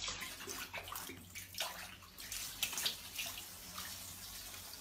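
Water running and splashing, a steady wash broken by many small irregular splashes and drips.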